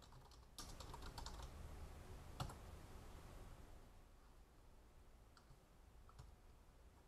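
Faint computer keyboard typing: a quick run of keystrokes about half a second in, one sharper single keystroke about two and a half seconds in, then a few scattered key clicks.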